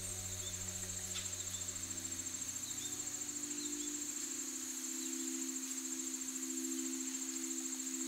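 A steady chorus of crickets trilling at a high pitch, with a soft low drone underneath that shifts up in pitch about three seconds in.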